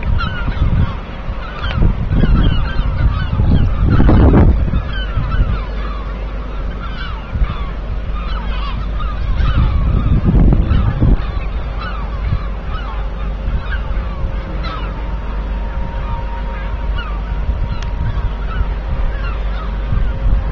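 A flock of birds calling non-stop, many short overlapping honking calls, over a faint steady hum. Low rumbles swell up twice, about four and about ten seconds in.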